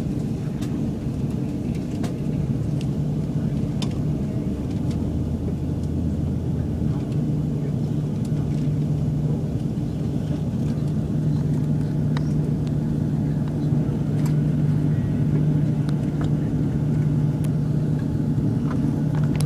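Steady low drone inside an Airbus A340-600 airliner's cabin, from its engines and air-conditioning, with a constant hum and a few faint clicks.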